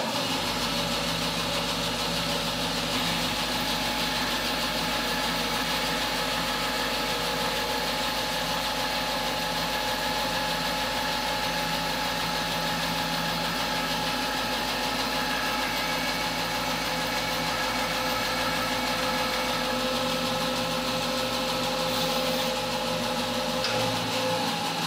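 A bandsaw running steadily while a walnut board clamped on a sliding sled is fed through the blade to cut a slot.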